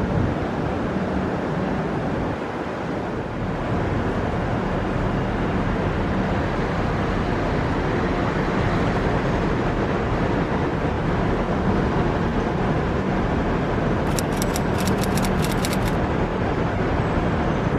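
Steady road-vehicle noise, an even rumble and hiss of a car or traffic. About fourteen seconds in comes a quick run of some ten sharp clicks lasting about two seconds.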